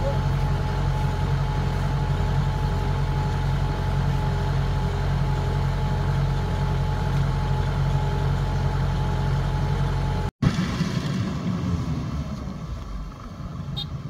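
Diesel engine of a Kubota DC-105X tracked rice combine harvester running steadily close by. About ten seconds in it cuts off abruptly and is replaced by a combine working farther away, a little quieter and sinking in level.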